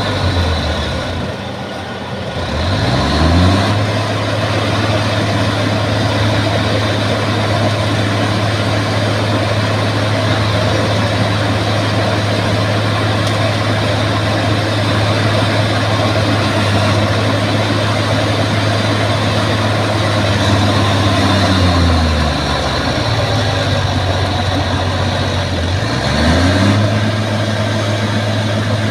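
Bulldozer diesel engine running steadily at high revs. Its note sags and then climbs back up near the start, and twice more later on, as the load on it changes.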